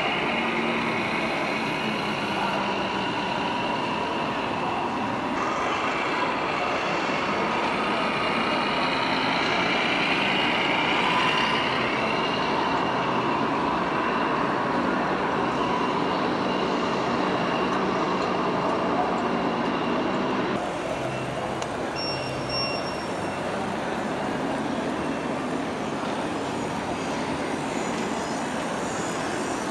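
Model trucks' onboard sound units playing simulated diesel engine noise as the 1/14 scale trucks drive, over the steady din of a busy hall. The sound changes abruptly a few times.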